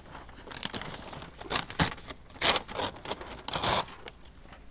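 A sheet of thermal paper being handled, rustling and scraping in a series of irregular short bursts, the longest near the end.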